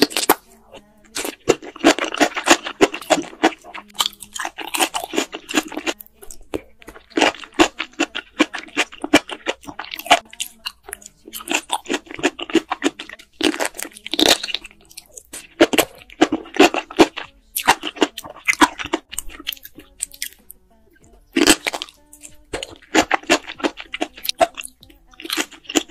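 Close-miked chewing of sauce-coated enoki mushrooms: wet, crunchy bites that come in clusters of rapid crackles with short pauses between them.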